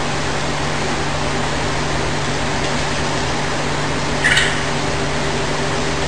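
A steady rushing noise with a low hum. About four seconds in, one short, high call from a yellow-vented bulbul (trucukan).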